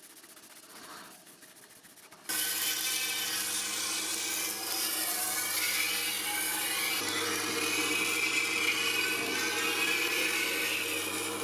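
A power tool starts suddenly about two seconds in and runs steadily, a motor hum under abrasive scraping as it works on the blade, with a change in tone partway through.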